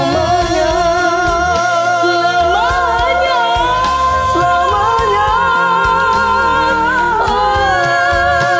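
A man and a woman singing a pop ballad duet together over a backing track, holding long notes with vibrato and moving to new notes about seven seconds in.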